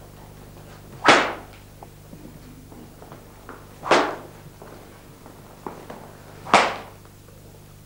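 A hand-made whip lashing a man's back through a square hole in a quilt: three sharp strokes about two and a half seconds apart, each ringing on briefly in the hall.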